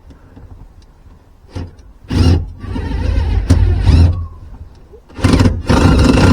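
A motor runs in short loud bursts with a sharp click between them, then starts running steadily near the end.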